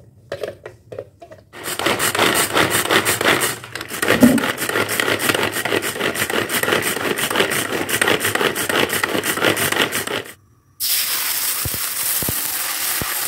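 Pull-cord manual food chopper being yanked over and over, its blades whirring and clattering as they mince shallots and garlic in the plastic bowl. After a brief gap near the end, the minced shallots and garlic sizzle steadily in hot oil in a wok.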